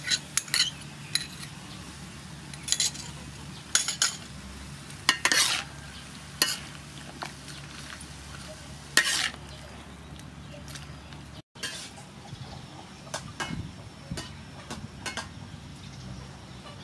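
A metal ladle scraping and clanking against a metal wok as beef and bitter gourd are stir-fried, the strokes coming irregularly about once a second over a steady sizzle from the pan.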